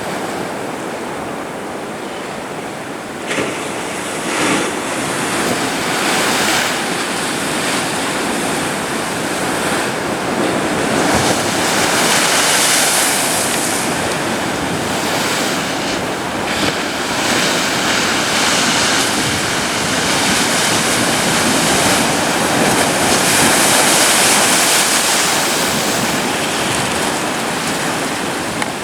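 Atlantic ocean surf breaking on a sandy beach: a continuous wash of waves that swells louder as each breaker comes in, strongest about midway and again near the end.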